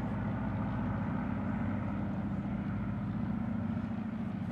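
An engine running steadily, a constant low hum at an even pitch.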